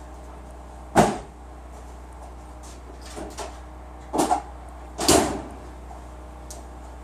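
Sharp knocks and clicks from the Honda CRX's hood release being worked with pliers to pop the hood, its release cable broken: a loud knock about a second in, a few faint clicks, then a double knock and another loud knock about five seconds in.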